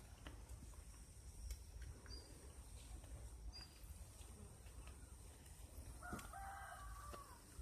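A faint animal call, about a second long, a little past three-quarters of the way through, over a steady low rumble, with a few faint high chirps earlier on.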